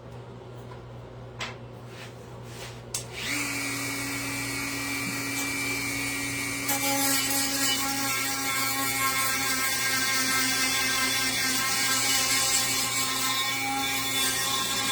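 A small high-speed power tool starts about three seconds in and runs with a steady whine, louder from about seven seconds on, taking wood off a carved sign to work it lower in depth. A few light clicks come before it starts.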